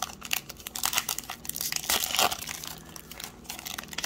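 A foil Panini Prizm basketball card pack being pulled open along its back seam, the wrapper crinkling and tearing, loudest about halfway through.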